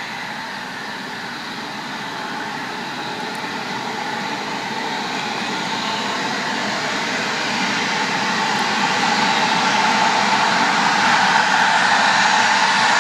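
Bombardier CRJ900 regional jet's two rear-mounted General Electric CF34 turbofans running at taxi power, a steady jet whine with high tones that grows steadily louder as the aircraft rolls closer.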